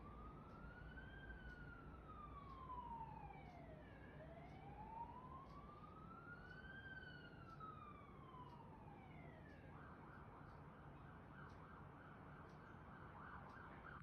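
Faint emergency-vehicle siren in wail mode, rising and falling slowly twice, then switching to a fast warbling yelp about ten seconds in.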